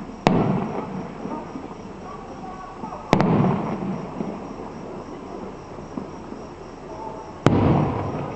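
Fireworks bursting overhead: three sharp bangs about three to four seconds apart, each followed by a rolling rumble that dies away over about a second.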